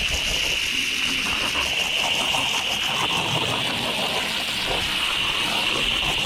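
Garden hose spray nozzle jetting water onto soaked boat carpet with a steady hiss, rinsing out road grime.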